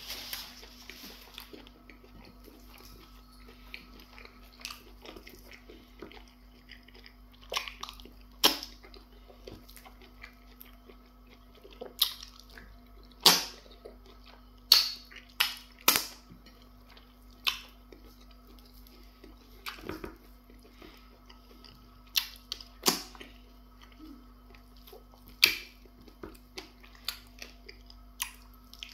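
Close-up eating sounds: mouth smacking and chewing of semo fufu dipped in okra soup, as a string of sharp wet smacks coming every second or so, loudest around the middle, over a low steady hum.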